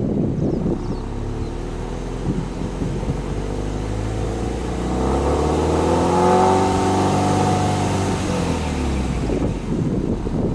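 Exhaust note of a Subaru Impreza WRX STI hatchback's turbocharged flat-four, revved slowly from idle while parked. The pitch climbs over about four seconds, holds for a few seconds, then drops back to idle near the end.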